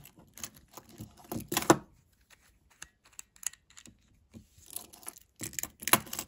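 Clicks and rattles of a metal link watch bracelet and a plastic spring-loaded watch case holder being handled, with louder clusters of clatter about a second and a half in and near the end.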